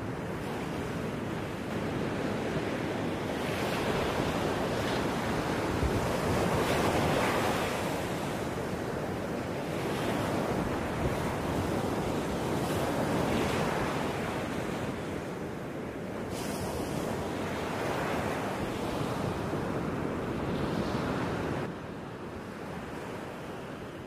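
Hair dryer blowing air onto wet acrylic paint, a steady rush that swells and eases several times, dropping off about two seconds before the end.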